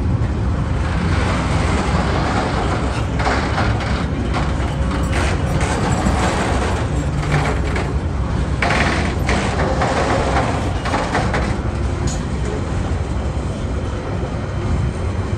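Freight train's loaded container wagons rolling past over the level crossing: a steady rumble of steel wheels on rail, broken by repeated bursts of clatter as the wheelsets pass, busiest in the middle and easing near the end.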